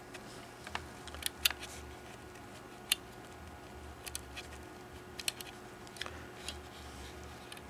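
Scattered light clicks and taps of a wire lead being worked by hand into the plastic battery compartment of a small toy prop, around its battery spring contact. A faint steady low hum runs underneath.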